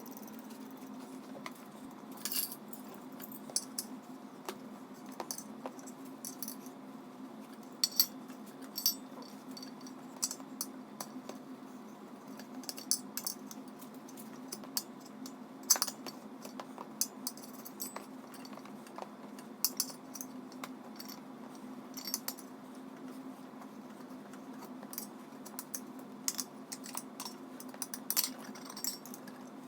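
Metal tire spoons clicking and clinking against a dirt bike's wheel rim at irregular intervals as the tire bead is levered onto the rim, over a steady low hum.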